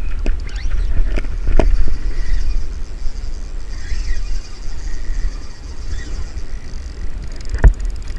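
Wind buffeting the microphone as a steady low rumble, with a few sharp knocks, the loudest near the end, and a faint high hiss through the first half.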